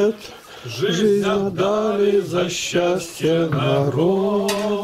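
Hymn singing, slow with long held notes, and no instruments, with a few short clatters of dishes.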